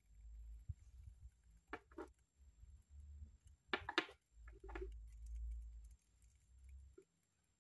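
Quiet handling noise: a few light knocks and clicks as a small tooth-model block and a metal wax instrument are handled and set down on a tabletop, over a low rumble of hand movement.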